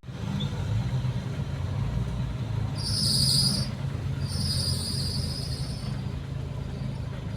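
Off-road 4x4's engine running at low revs under load. Two high-pitched squeals cut in over it, a short one about three seconds in and a longer one a second later.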